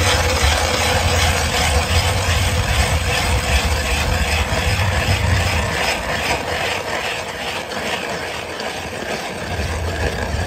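Hand-cranked ice auger drilling through thick lake ice: a steady grinding scrape as its spiral blades cut into the ice.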